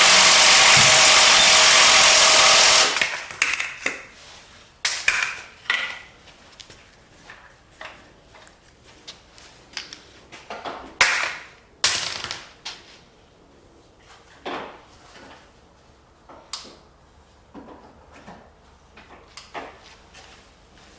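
A power tool runs loudly and steadily for about three seconds, then stops, followed by scattered clinks and knocks of tools and engine parts being handled during an engine teardown.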